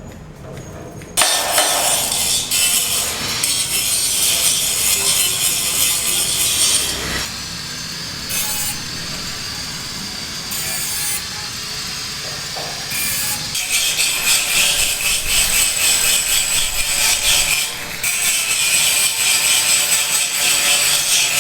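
A construction tool working material with a loud, hissing, scraping noise. It starts abruptly about a second in, eases off for several seconds in the middle, then runs loud again until it cuts off at the end.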